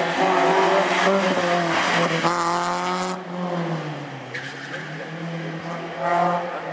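BMW E30 3 Series race car's engine working hard through tight slalom turns, with the tyres squealing for about a second midway. The engine note then falls and runs lower and steadier.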